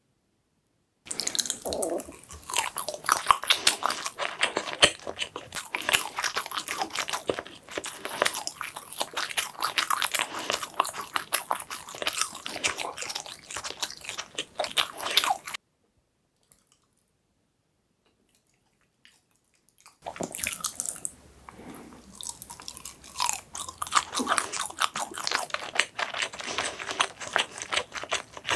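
Close-miked chewing of a firm, smooth dessert made from milk and chocolate: dense, fast mouth clicks that break off for about four seconds in the middle, then start again.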